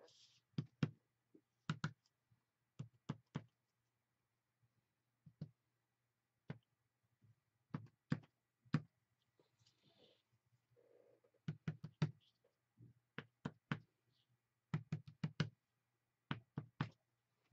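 A paintbrush handle tapped down on paper again and again to stamp short lines of white acrylic paint. The sharp taps come in quick clusters of two to four, with pauses between.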